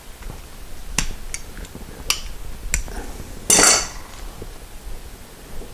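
Small metal parts and tools being handled: a few sharp separate clinks, then a louder, longer clatter about three and a half seconds in.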